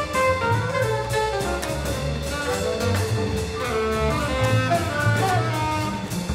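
Small jazz ensemble playing: horn lines over double bass and drums.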